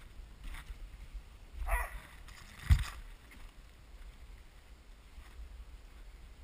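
Dog sled runners sliding and rumbling over snow, with the sled frame rattling along the trail. A short scraping sound comes just under two seconds in, then a sharp, loud knock about a second later as the sled jolts.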